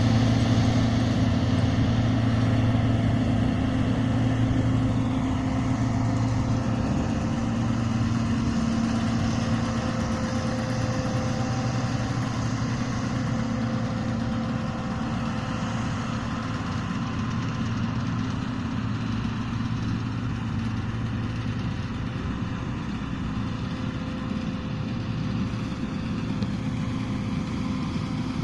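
John Deere 2266 combine harvester running steadily as it cuts rapeseed, a low, even engine hum with the machine's working noise, slowly fading as it moves away.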